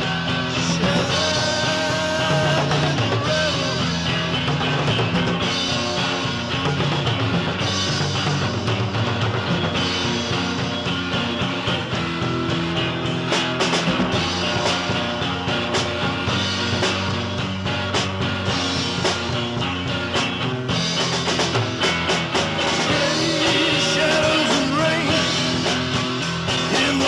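Rock music played by a band.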